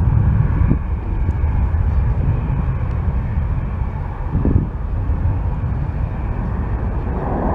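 Jet airliner's engines heard from a distance as it moves along the runway: a steady low rumble with a faint whine above it.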